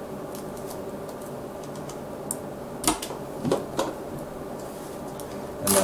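Plastic retaining clips of a Dell Inspiron 1525's hinge-cover bezel snapping loose as the trim is lifted by hand. A few light clicks, then sharper snaps about three seconds in and the loudest one just before the end, over a steady low background hum.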